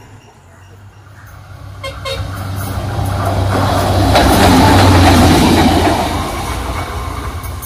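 Lanka Ashok Leyland rail bus, a converted diesel bus on railway track, running past: its engine hum and the noise of its wheels on the rails grow louder as it approaches, are loudest about two-thirds of the way through, then ease off as it goes by. A few sharp clicks come about two seconds in.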